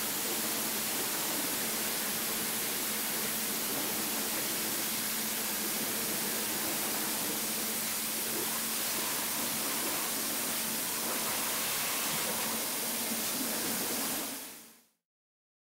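Water-jet cutting machine's high-pressure jet hissing, an even, steady rush with a steady low hum underneath. It fades out quickly near the end.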